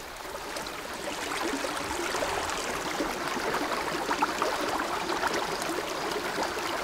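A small rocky stream babbling as it flows over stones, a steady rush of water flecked with many small splashes, fading up over the first second.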